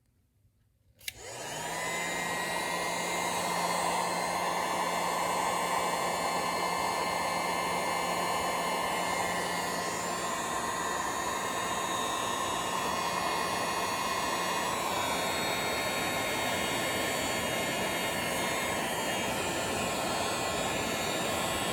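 Heat gun switched on about a second in and blowing steadily with a motor hum, shrinking heat-shrink tubing over freshly soldered wire joints.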